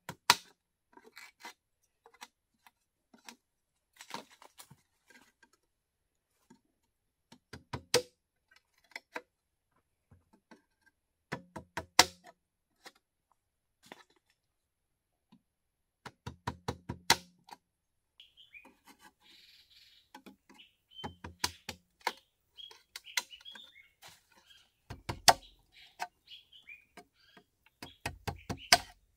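Machete driven with a wooden mallet to chop notches into green bamboo poles: bursts of rapid, sharp knocks, several strikes in each burst. Birds chirp through the second half.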